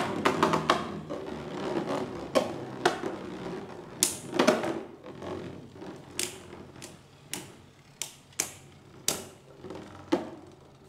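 Two Flame-brand Beyblade GT spinning tops (Ace Dragon and Master Diabolos) whirring in a plastic stadium and clacking sharply as they collide, about a dozen hard plastic hits at irregular intervals. The spinning hum is strongest at first and grows fainter as the tops slow.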